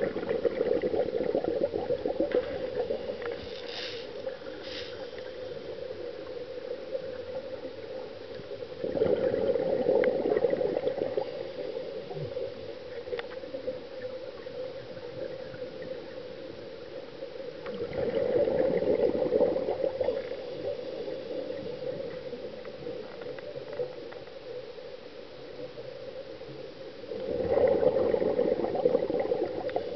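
Scuba diver's regulator exhaust: a burst of bubbling with each breath out, about every nine seconds and two to three seconds long, with quieter stretches between breaths.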